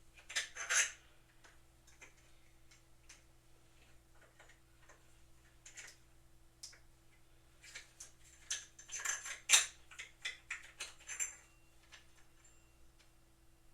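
Objects being handled, making scattered clicks and light clatters. The busiest spells come about a second in and again from about 8 to 11 seconds, over a faint steady hum.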